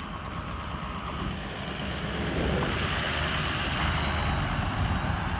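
Dual-rear-wheel pickup truck running close by, a steady rumbling noise that grows louder about two seconds in.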